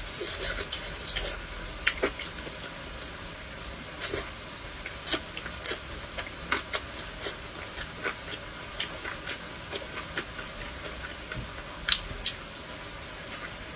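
Close-miked chewing and mouth sounds of a person eating fried skewers: irregular wet smacks and crunchy clicks, one or two a second, with a louder pair near the end.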